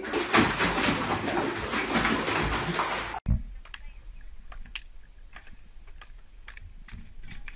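Water sloshing and splashing loudly as a German shepherd moves about in a foamy bathtub. It cuts off abruptly about three seconds in, and a much quieter stretch follows with scattered light clicks of footsteps on a wooden dock and a low rumble.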